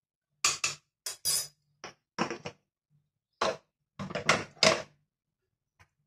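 Metal spoon scraping and knocking against a small ceramic bowl while powder is stirred into a paste. The sound comes as a run of short scrapes and clinks over about four seconds.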